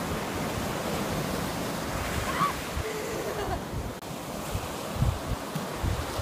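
Ocean surf breaking and washing up the beach, a steady rush, with wind buffeting the microphone in low gusts, most strongly about five seconds in.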